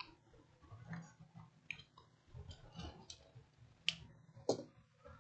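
Scattered faint clicks and taps of small tools and parts being handled on an electronics repair bench, with two sharper clicks about four seconds in.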